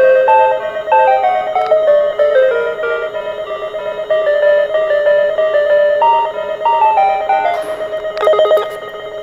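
A mechanical parking system's electronic warning melody, a simple tune of single notes, playing while the machine runs; near the end the tune stops and a short electric bell rings.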